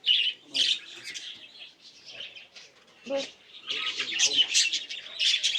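Canaries and other small cage birds chirping and twittering, many short calls overlapping, busier near the end.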